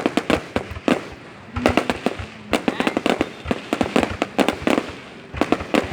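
Fireworks going off: rapid sharp cracks and bangs in dense clusters, with two short lulls in between.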